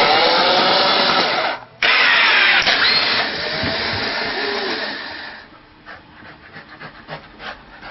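A motorised machine whirring loudly, its pitch sweeping up and down. It cuts out for a moment about two seconds in, starts again, and dies away a few seconds later.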